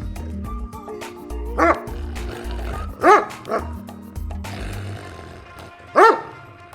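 Doberman barking loudly: three single barks, the second followed closely by a softer one and the last after a longer pause. Background music plays underneath.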